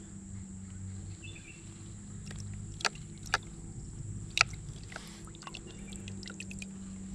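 Sharp clicks and taps of fishing tackle being handled while the hook is baited with moss from a bucket, three louder clicks near the middle and lighter ticks after. Under them a steady low hum and a steady high tone continue.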